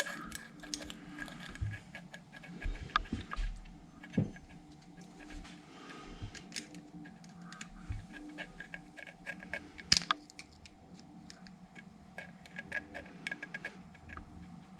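Light metal clicks and taps of small hand tools working a valve-clearance adjuster with a feeler gauge on a 110cc pit bike engine's cylinder head, with a sharper click about ten seconds in, over a faint steady hum.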